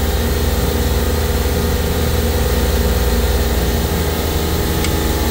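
Supermarket refrigeration compressor rack running, a loud steady hum made of several fixed tones, while it pumps the liquid line down. A faint tick near the end.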